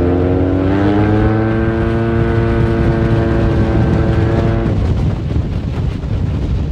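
Motorcycle engine under hard acceleration: the note climbs in pitch for the first second or so, then holds at a steady high pitch, and falls away about five seconds in, leaving a rough rumble of wind and road noise.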